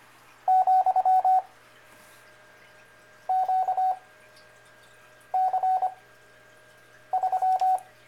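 Morse code practice tones from the G4FON Koch Method CW Trainer software: four characters of quick beeping dits and dahs at one steady pitch, each sent fast (25 wpm character speed) with pauses of over a second between them (9 wpm effective speed, Farnsworth-style spacing).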